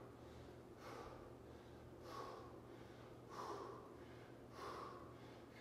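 A man breathing hard from exercise exertion: short, forceful breaths repeating about once every second and a bit, faint.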